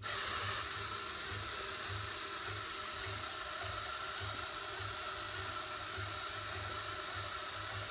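Oil pump of a 426 Hemi engine being turned slowly by a drill-driven priming tool: a steady mechanical whir with a low pulse about twice a second. The pump is holding about 75 psi of oil pressure at low turning speed, typical of a high-volume pump.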